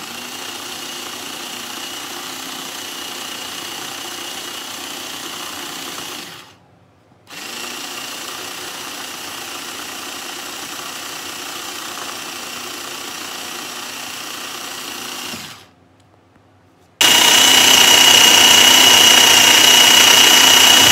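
Electric chopper (a motor unit on a clear bowl) grinding a wet onion-and-spice masala into paste. It runs in three pulses with brief stops between them, a steady motor whine each time, and the last pulse is the loudest.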